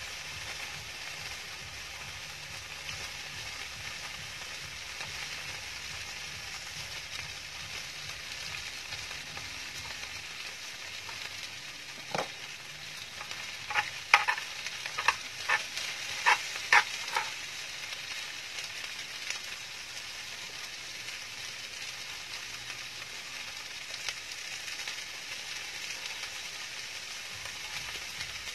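Chicken and kimchi fried rice sizzling steadily in a grill pan on a portable gas stove. About halfway through, a metal spoon clicks against the pan half a dozen times in quick succession.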